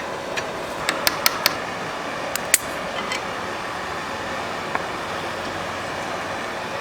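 Steady, fan-like background whir in a workshop, with a few sharp metallic clicks during the first three seconds and one more soft click later, as tools and small metal parts are handled.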